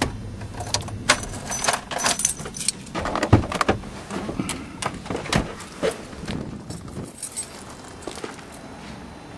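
A run of clicks, rattles and knocks from a person getting out of a stopped car with a handheld camera. It dies down after about six seconds, leaving a faint steady hiss.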